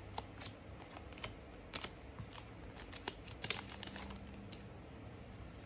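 Scattered light clicks and ticks of trading cards being handled, about a dozen, irregularly spaced, over a steady low fan hum.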